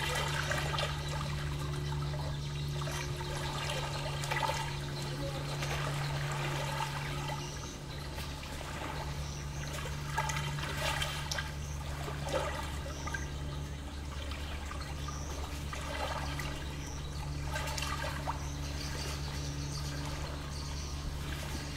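Small lake waves lapping and splashing against the shore, over a steady low hum that drops out for a moment a couple of times.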